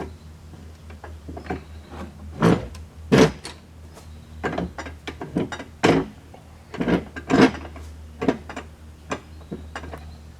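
Manual tire changer being worked: irregular metal clanks and scrapes as a stiff six-ply tire's bead is levered onto the rim, over a steady low hum.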